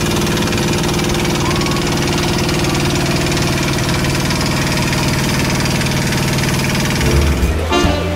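Engine of a wooden passenger boat running steadily at a constant speed, heard from on board, with a fast even pulse. It gives way to music about seven seconds in.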